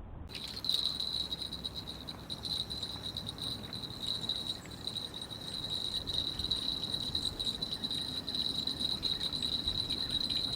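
A continuous high-pitched insect-like trill that starts abruptly just after the beginning and holds steady at one pitch throughout, over faint low background noise.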